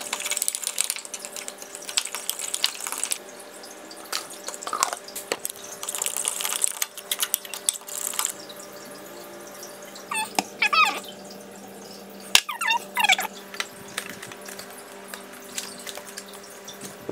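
A fork stirring and scraping wet mashed-banana pancake batter in a glass Pyrex measuring jug, in wet clinking, scraping spells that come and go over a steady low hum. Two short chirping calls come about ten and thirteen seconds in.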